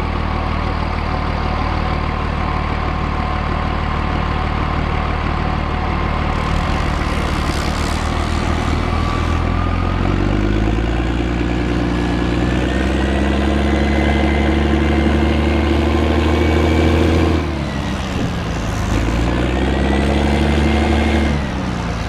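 M113 armoured personnel carrier's diesel engine running under way. The engine note climbs steadily from about halfway through, falls off abruptly about three-quarters of the way in, then rises again and drops once more near the end.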